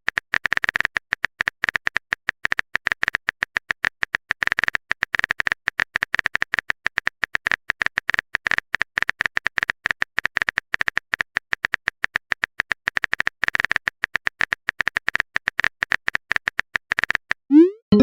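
Rapid, irregular clicking of a phone-keyboard typing sound effect, several clicks a second, with a short rising swoop near the end like a message-sent sound.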